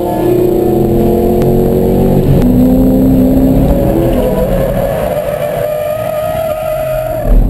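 A track car's engine heard from inside the cabin. The revs fall over the first two seconds, then climb again from about five seconds in as the car spins off the track into the grass. A loud thump comes just before the end.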